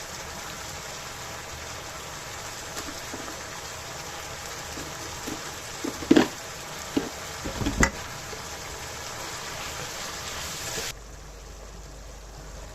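Food cooking on the stove, a pot or pan giving a steady hiss, with a few knocks around the middle. The hiss cuts off suddenly near the end.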